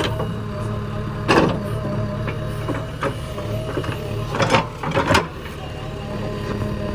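Heavy vehicle engine running steadily, with three short loud bursts, one about a second in and two close together past the middle.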